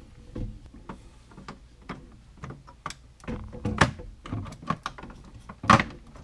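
A 20-amp circuit breaker being hooked into a tab in the panel and pressed onto the bus bar: a run of sharp plastic-and-metal clicks and knocks, with the loudest snap near the end as it seats.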